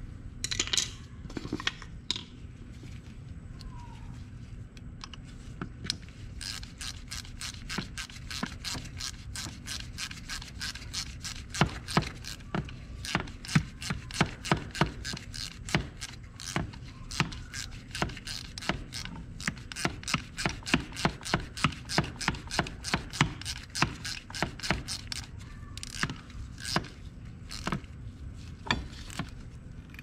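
Hand ratchet clicking in steady strokes, about three clicks a second, from about six seconds in until near the end, as bolts on the ATV's front brake caliper are run in. A few seconds of light scraping and knocks of metal parts come before it, over a low steady hum.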